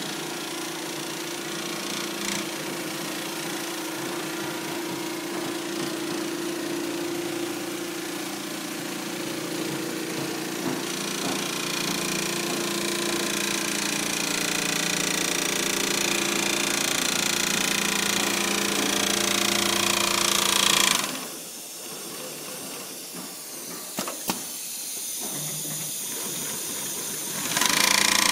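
Mattress quilting machine running steadily as its needle head stitches through a padded mattress panel. About three quarters of the way through it falls much quieter for several seconds, with a couple of clicks, then comes back loud near the end.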